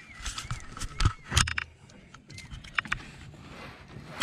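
Handling clatter in an aluminium boat as a landed peacock bass is clamped in a lip grip and lifted: a few sharp knocks, the loudest about a second and a half in, with light rattling and scraping between them.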